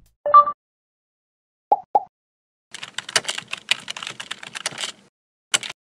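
A short electronic beep, then two brief blips, followed by a run of rapid clicks like typing on a keyboard for about two seconds, and one last click near the end.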